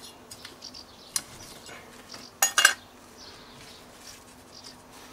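Hands working in a plastic grow bag of compost while planting seedlings: soft rustling and small clicks, a sharp click about a second in, and a louder quick run of clicks about two and a half seconds in.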